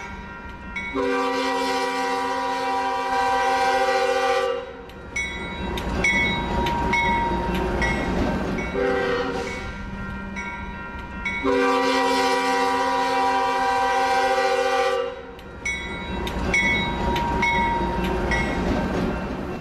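Rail King toy train's sound effects: a rumbling, clattering running sound with two long horn blasts and a short one between them.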